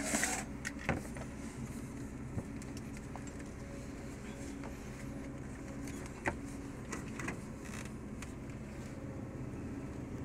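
Motorhome engine idling steadily, with a few scattered clicks and knocks.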